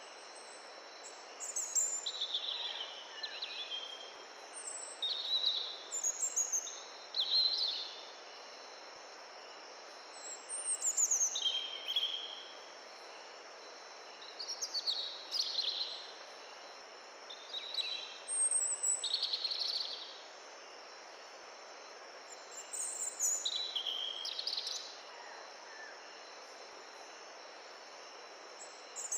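A forest stream's steady rushing, with songbirds singing short phrases, some sliding down in pitch, every second or two over it.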